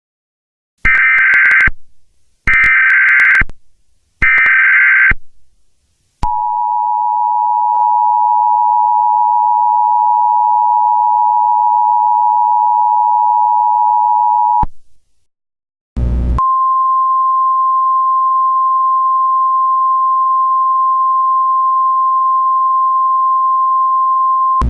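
Three short bursts of Emergency Alert System SAME header data, a warbling digital screech, which the uploader warns may be valid enough to set off real alert receivers. Then comes the steady two-tone EAS attention signal for about eight seconds. After a short gap and a brief click, a single steady 1050 Hz weather-radio alert tone follows.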